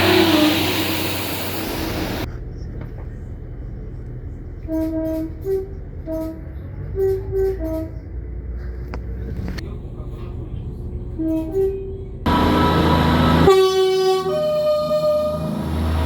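Train horns across several short recordings: first a horn over the loud rumble of a passing train, then a run of short horn toots, several in quick pairs, and about three-quarters of the way in a loud train horn sounding a held multi-note chord over train noise.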